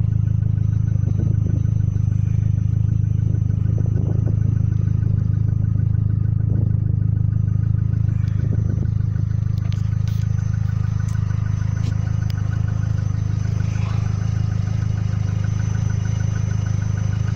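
Vauxhall Astra G engine idling steadily, with a constant low exhaust hum, running on its newly fitted front flexi pipe and centre silencer.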